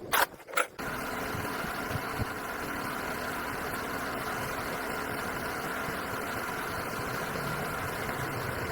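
Honda 110cc motorcycle's single-cylinder engine starting: a few sharp knocks in the first second, then it catches and runs steadily at idle.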